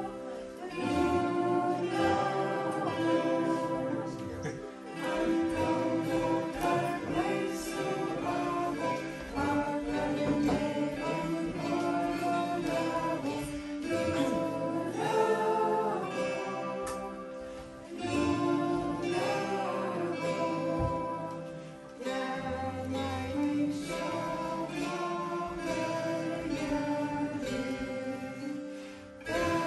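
Kanklės, the Lithuanian plucked zither, playing a song while a group of children sing along together, with short breaks between phrases.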